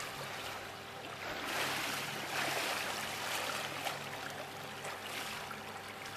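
Pool water splashing and lapping as a swimmer surfaces after a dive and swims breaststroke, an irregular wash of small splashes.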